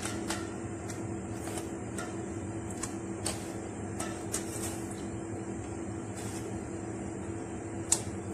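A steel pot of water with whole spices heating on the stove, with scattered faint ticks over a steady low kitchen hum. A sharp clink comes near the end as a spoon tips salt into the water.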